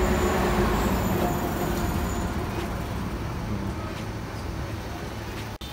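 Low rumble of motor-vehicle engine and road traffic, slowly fading, with a faint high steady whine in the first two seconds or so.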